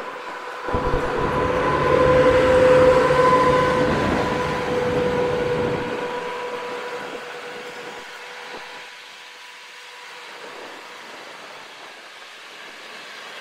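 PKP Intercity passenger train, an electric locomotive hauling coaches, passing close by on the track: a loud rumble of wheels on rail with a steady humming tone over it, loudest in the first few seconds as the locomotive goes by, then easing to a lower, steady rumble as the coaches roll past and away.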